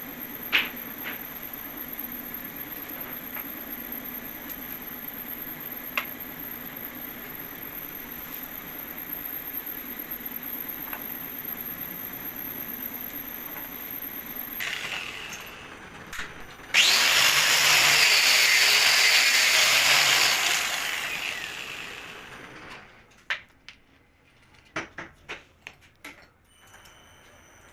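Workshop sounds from cylinder-head repair on a diesel engine. A steady low hum carries scattered clicks, then a power tool runs loudly for about four seconds and winds down. A few light metallic taps and clicks follow.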